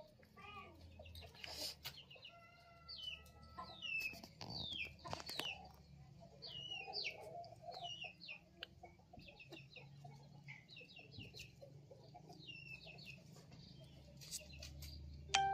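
Faint farmyard background of chickens clucking and small birds chirping in many short, quick calls. Just before the end, a sudden ringing, chime-like tone starts and is the loudest sound.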